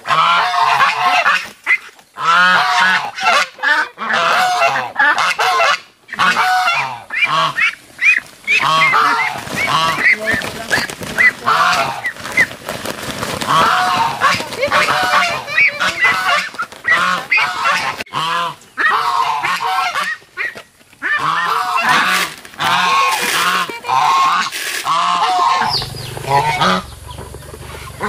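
A flock of domestic waterfowl calling loudly, many short honking and quacking calls overlapping almost without pause. A low steady rumble comes in near the end.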